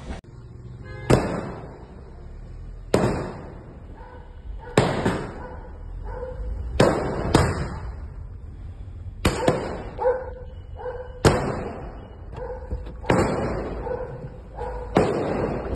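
A series of about nine sharp bangs, roughly one every two seconds, each dying away over a fraction of a second.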